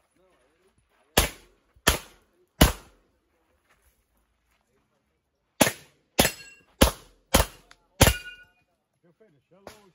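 Glock 17 9mm pistol firing eight shots during an IPSC stage: three in quick succession, a pause of about three seconds while the shooter moves, then a faster string of five. A brief ringing tone lingers after a couple of the later shots.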